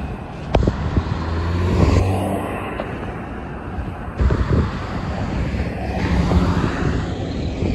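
Road traffic at an intersection: cars driving past, then a semi-truck's diesel engine humming as it pulls through, with some wind on the microphone.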